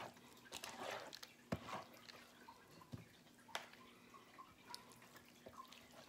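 Faint, scattered clicks and taps of a serving utensil and plastic meal-prep containers as food is spooned into them, with a few soft drip-like plops.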